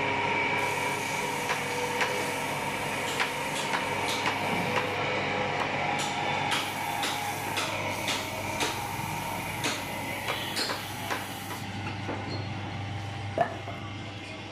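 Wood lathe motor running with a steady hum while a hand-held turning tool cuts the spinning wooden sofa leg, throwing off shavings. Irregular sharp clicks and knocks come from the tool against the wood throughout, with a louder knock near the end.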